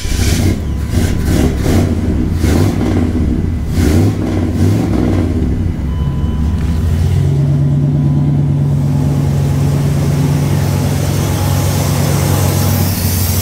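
A 1994 Chevy 3500's 454 (7.4 L) big-block V8 with a newly fitted throttle body injection unit fires up and runs unevenly in surges for the first few seconds, then settles into a steady idle about seven seconds in. It is not running happily on the new throttle body, which the owner puts down to the computer needing a reset or the timing needing adjustment.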